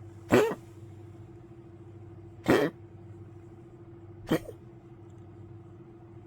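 An old poodle coughing three times, short harsh coughs about two seconds apart, the last one shorter and weaker.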